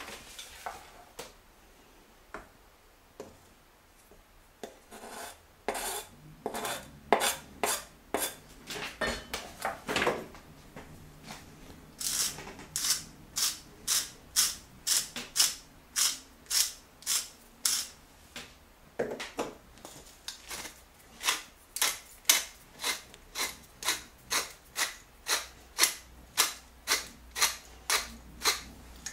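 Hand-twisted salt mill, then pepper mill, grinding over the pot: each twist is a short rasping scrape, about two to three a second. There is a brief pause between the two mills.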